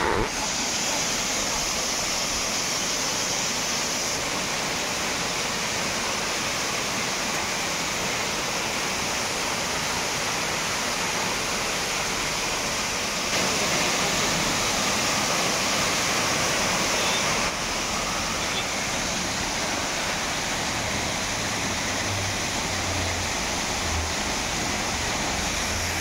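Small mountain waterfall splashing down over rocks into a pool: a steady rushing of falling water, a little louder for a few seconds midway.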